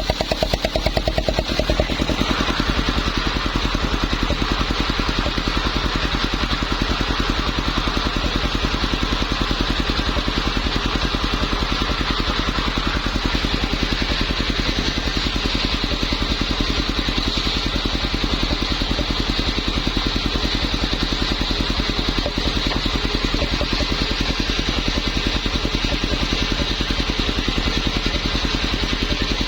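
Small engine-driven circular saw running steadily, the engine putting out a fast even pulse, with a change in tone about two seconds in.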